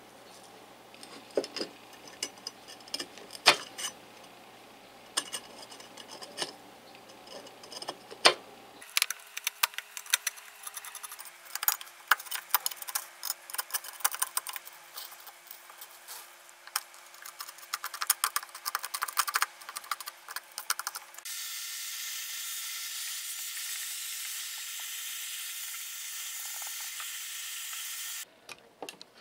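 A steel pick or blade scraping and prying a hardened insect nest of caked dust off the metal of an electric planer: irregular clicks and scratches, sparse at first, then a dense scratching run. In the last third a vacuum cleaner's steady hiss takes over as its hose sucks debris from the planer housing.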